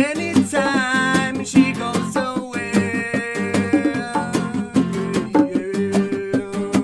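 Live band playing a song: a steady drum beat and guitar, with a held, wavering melody line on top.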